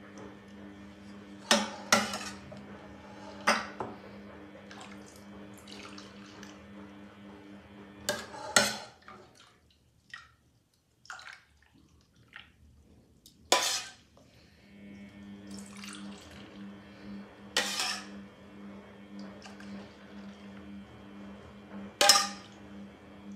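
A metal ladle clinking against a stainless-steel saucepan and glass bowls, about eight sharp clinks, as warm milk for homemade raib is scooped and poured into the bowls with soft liquid splashing. A steady low hum runs underneath and drops out for a few seconds in the middle.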